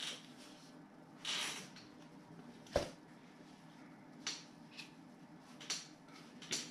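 Handling noise from a cordless impact wrench being turned over in the hands: a few light clicks and a brief rustle, with one sharper knock a little under three seconds in. The wrench's motor is not running.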